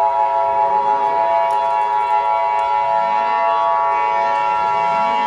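Emergency Alert System attention signal: a loud, steady, harsh alarm tone made of several held pitches, strongest around the 850–960 Hz pair, with faint repeated rising glides underneath.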